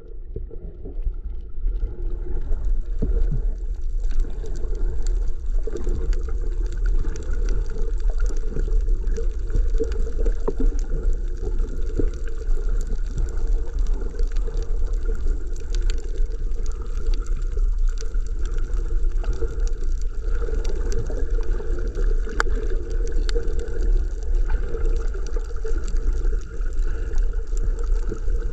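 Underwater sound through a GoPro's waterproof housing: a steady muffled rumble of moving water, with scattered sharp clicks throughout.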